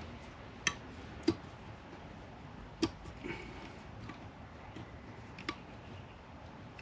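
Sharp metallic clicks of pliers on a Honda K24A cylinder head as a rust-stuck exhaust valve is gripped and twisted: four clear clicks at irregular intervals, with fainter ticks between.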